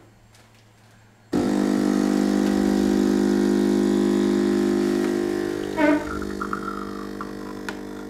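Silvercrest SSMS espresso machine's vibration pump running while it pulls an espresso shot: a steady buzzing hum that starts abruptly about a second in and eases off slightly after five seconds. A brief higher sound comes near six seconds.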